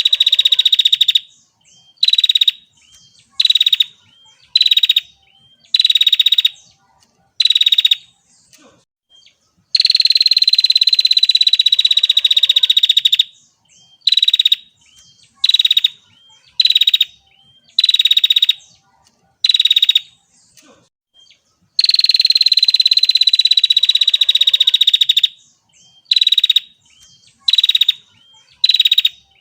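Female prenjak (prinia) calling in buzzy trills. A long trill of about three and a half seconds, falling slightly in pitch, is followed by a run of short trilled bursts about one a second. The pattern repeats, with the long trill returning twice.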